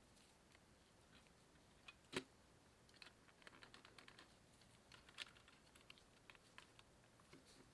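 Faint, scattered small clicks and taps of hands handling a plastic toy and its parts during repair, with one sharper click about two seconds in and a busier run of light clicks after it.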